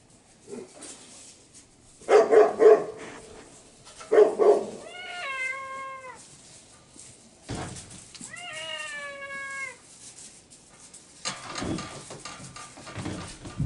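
Animals in a straw-bedded pen: a few short, loud, rough barks, then two long, pitched calls about three seconds apart, each falling slightly and then held for about a second. There is a knock between the two calls and rustling near the end.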